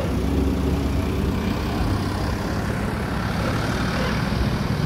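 Steady low rumble of a vehicle engine mixed with outdoor traffic noise.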